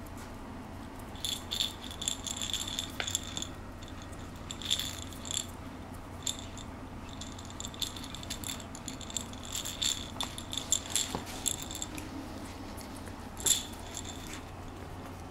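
A rattle inside a plush toy shaking in uneven bursts as a puppy pushes and knocks the toy about, with the loudest shake near the end.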